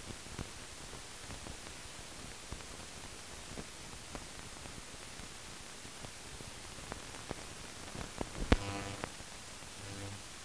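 Steady hiss of an old film soundtrack with scattered faint clicks. About eight and a half seconds in there is a loud click and a brief buzz, and a fainter buzz follows near the end.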